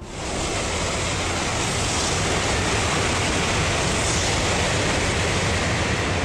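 Shinkansen bullet train passing at speed: a steady, loud rushing noise that rises in within the first half second and holds.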